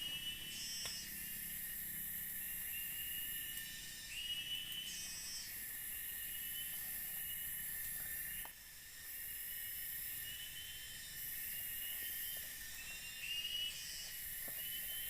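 Forest insect chorus: a high-pitched buzz that comes and goes in stretches of a few seconds, with a short rising chirp repeated every few seconds beneath it. A few faint clicks are scattered through it.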